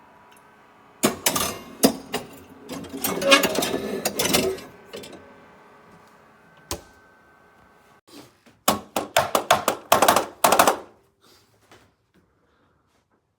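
Handling noises: an irregular clatter of clicks and knocks, then a single knock, then a quick run of sharp taps.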